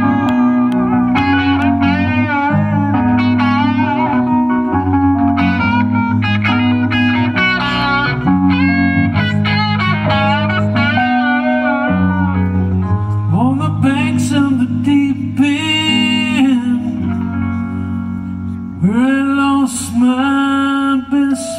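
Live guitar and keyboard duo playing an instrumental passage: guitar lead lines with bent, sliding notes over sustained keyboard chords.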